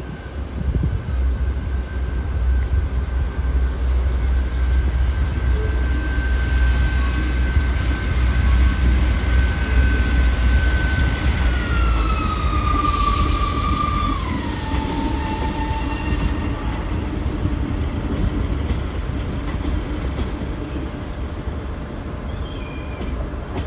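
Class 158 diesel multiple unit pulling away, its engine giving a low rumble under power. A wheel squeal whines steadily and then drops in pitch in two steps around the middle, and a hiss sounds for about three seconds at the same time.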